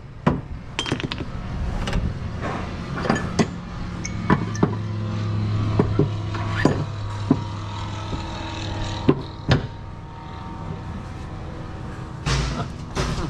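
Scattered sharp metal clinks and knocks from hand tools worked at a stern drive's gimbal housing during engine alignment, with a louder cluster of knocks near the end. A steady low machine hum runs underneath through the middle.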